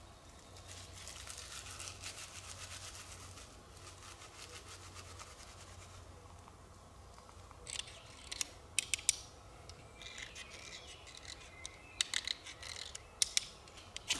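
A knife scraping steadily for several seconds. Then, from about eight seconds in, clusters of sharp rasping strikes of a knife spine down a ferrocerium rod, throwing sparks into dry tinder to light a fire.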